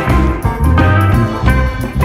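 Upbeat instrumental background music with a steady, bouncing beat and plucked guitar.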